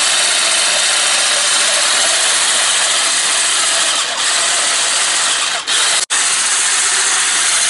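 Electric hand mixer running steadily, its whisk beating eggs in a bowl; the sound cuts out for an instant about six seconds in.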